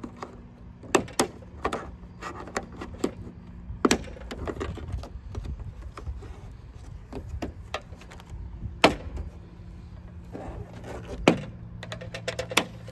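Plastic trim clips snapping loose as a trunk-lid trim panel is pried off with a plastic pry tool: a scatter of sharp clicks and snaps, the loudest about 4, 9 and 11 seconds in, over a faint steady low hum.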